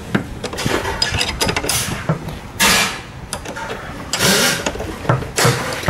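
Two metal wrenches working a nylon-insert lock nut tight on the stop-arm actuator's bolt: a series of short scraping, clicking bursts as the wrench is turned and reset, about one a second.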